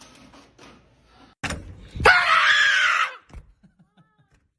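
A sudden loud thump, then a woman screams in fright for about a second.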